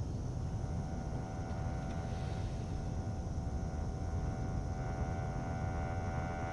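A sustained drone from a battery-powered electronic instrument fades in over a steady low rumble. It holds one pitch with several overtones, and more upper overtones join about five seconds in.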